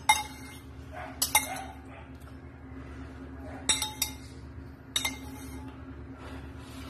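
Metal spoon clinking against a bowl about six times as soup is scooped up and eaten, each clink short and ringing. A steady low hum runs underneath.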